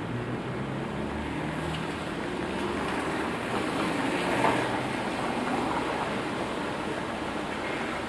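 Rain and city traffic on wet streets: a steady hiss over a low engine rumble, with a vehicle's tyre hiss swelling and fading about halfway through.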